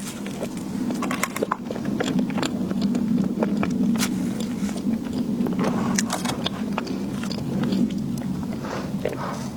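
Close-miked eating sounds: a person chewing, with irregular wet mouth clicks and smacks, over a steady low hum.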